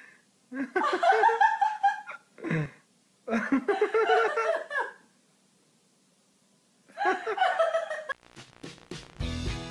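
People laughing in several bursts, with quiet pauses between; background music starts near the end.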